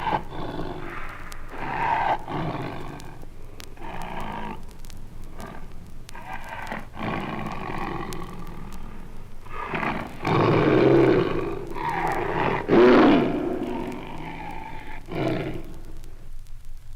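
Large female Siberian tiger growling and snarling over its meat at feeding time, in a string of growls, loudest about ten and thirteen seconds in. Faint clicks of vinyl surface noise run underneath.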